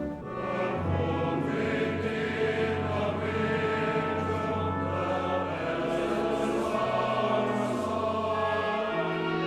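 Choral music: a choir singing slow, sustained chords with a changing bass line.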